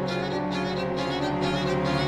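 Violin and piano playing classical chamber music, sustained violin tones over a steady run of repeated notes.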